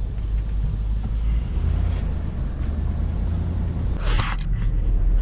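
Steady low drone of the 2006 Infiniti QX56 with its 5.6-litre V8 driving on the road, heard from inside the cabin, on a road test of the newly repaired RE5R05A automatic transmission. A brief hiss or rustle about four seconds in.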